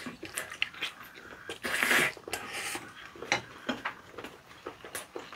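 A loud wet slurp of noodles in spicy sauce about two seconds in, among close, wet chewing and lip-smacking clicks.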